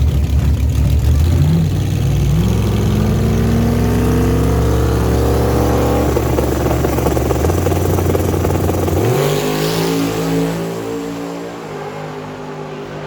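Cars accelerating hard in a race, engine note climbing steadily in pitch, then jumping up again about nine seconds in as the sound fades.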